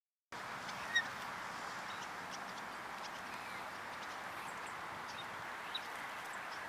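A few short, faint bird chirps, one about a second in and a couple more near the end, over a steady hiss of outdoor background noise.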